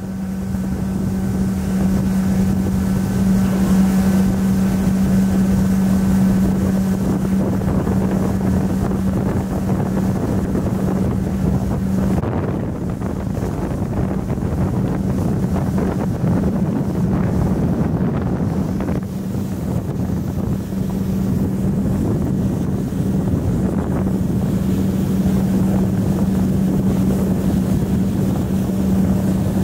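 Rented boat's motor running at a steady speed with a constant low hum, which fades for a few seconds midway and then returns. Wind buffets the microphone over the water noise.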